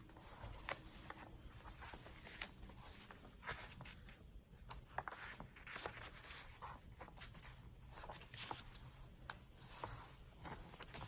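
Faint rustling of paper pages being turned and handled in a thick handmade journal, with many small taps and flicks.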